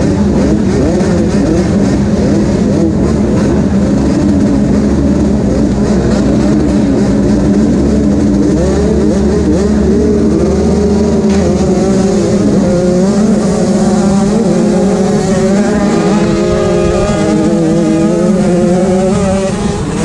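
85cc two-stroke motocross bikes revving at the starting line, then about halfway through the engines open up and the rider's bike accelerates up through the gears, the pitch climbing and falling back at each shift.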